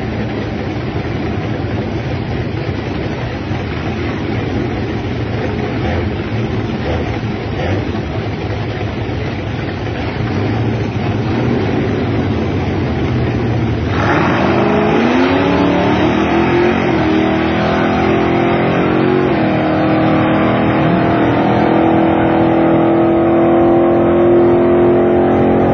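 A big-block Chevrolet V8 (a 454 bored .030 over to 460 cubic inches, with a hydraulic roller cam) in a 1972 Chevy Nova drag car rumbles at the starting line. About fourteen seconds in it suddenly gets louder as the car launches, its pitch climbing and breaking at the gear changes of the Turbo 350 automatic. It then settles into a long steady note that slowly falls away as the car runs off down the track.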